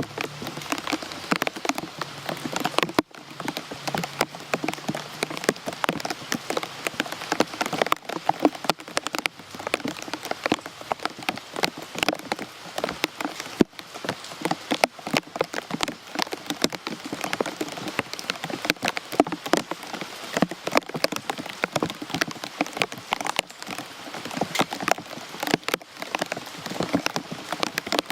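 Steady rain, with many distinct drops striking close by in a dense, irregular patter.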